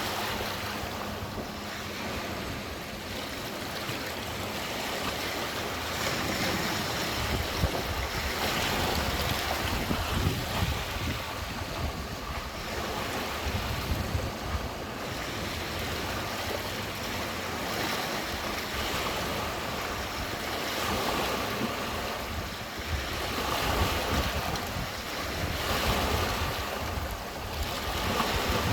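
Small lake waves washing against the shore in repeated surges every few seconds. From about seven seconds in, wind buffets the microphone with a gusty low rumble.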